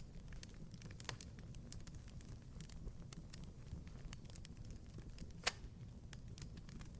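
Wood fire crackling in a fireplace: a steady low rumble of burning with many small, quick snaps, and one louder pop about five and a half seconds in.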